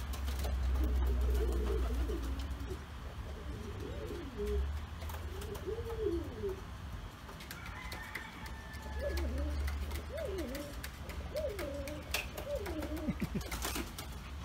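Pouter pigeons cooing: a run of short coos that rise and fall in pitch, coming more often in the second half. A low rumble under them swells a few times.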